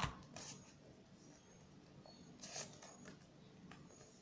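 Faint rustling of a paper banknote and a paper sleeve being handled, a few soft crinkles with the loudest about two and a half seconds in.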